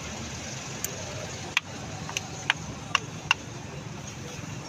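Car engine idling with a steady low rumble, broken by half a dozen sharp, irregularly spaced ticks. The engine has a misfire.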